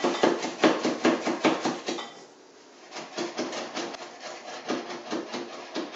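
Kitchen knife chopping fresh oregano on a wooden cutting board: quick chops about five a second, pausing briefly about two seconds in, then chopping again.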